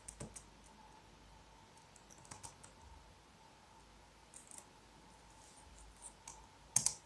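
Scattered computer keyboard keystrokes and mouse clicks, a few at a time, with a louder cluster of clicks near the end.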